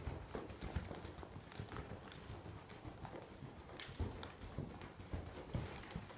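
Hoofbeats of a quarter horse gelding moving around on the lunge line: an irregular run of dull thuds with occasional sharper clicks.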